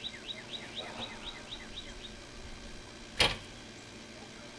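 A bird sings a rapid run of short down-slurred notes, about five a second, for the first two seconds. About three seconds in, a tractor's cab door slams shut with a single loud bang.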